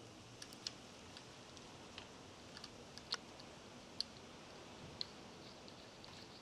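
Faint, scattered light clicks and taps of parts and tools being handled, irregularly spaced over a quiet background hiss.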